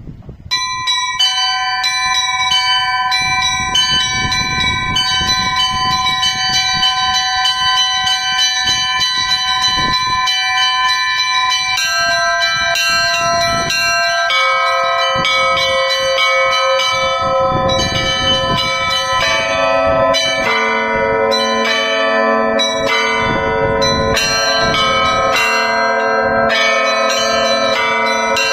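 Russian Orthodox church bells ringing in a festal peal. A quick pattern of small, high bells starts about half a second in, and progressively lower, heavier bells join about halfway through and again about two-thirds of the way through, filling out the ringing.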